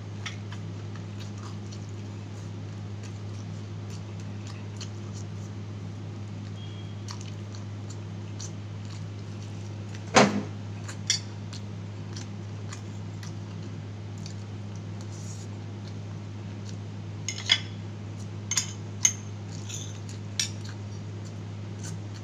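Metal spoon and fork clinking and scraping against a plate while eating rice and fried chicken: scattered sharp clinks, the loudest about ten seconds in and several more near the end. A steady low hum runs underneath.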